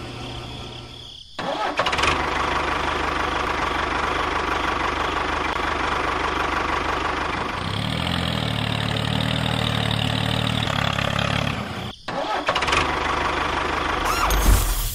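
Tractor engine running steadily. It starts suddenly about a second in, turns to a lower note for a few seconds midway, cuts out briefly near the end and picks up again.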